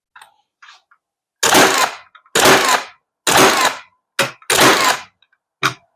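Milwaukee cordless nailer in bump-fire (contact) mode driving nails into pallet wood. After a couple of faint clicks, six loud sharp nail shots come in quick succession, starting about a second and a half in, showing that the serial firing mode works.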